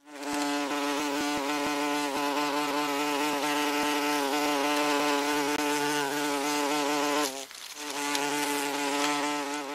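Wasp buzzing in flight: a steady, even drone of beating wings. It breaks off for a moment about three-quarters of the way through, then carries on at the same pitch.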